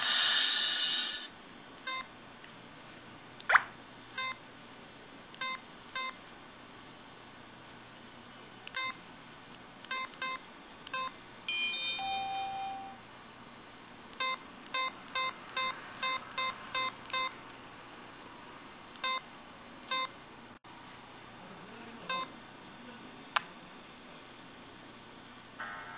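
IM-6100 mobile phone's key and menu beeps: short electronic beeps at irregular intervals. There is a quicker run of about two beeps a second past the middle, and a longer multi-tone effect sound just before it.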